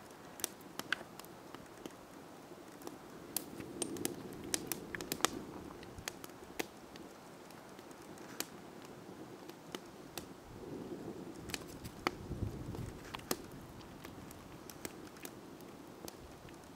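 Quiet outdoor ambience with scattered sharp clicks and crackles at irregular intervals, and a brief low rumble about two-thirds of the way through.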